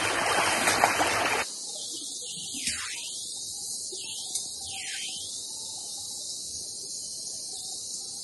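Rushing stream water, which cuts off abruptly about a second and a half in. A quieter steady high hiss follows.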